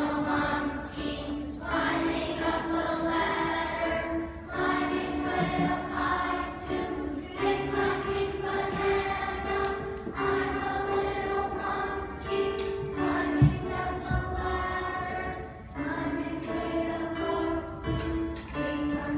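A group of children singing a melody together in unison, in held phrases of about two seconds each.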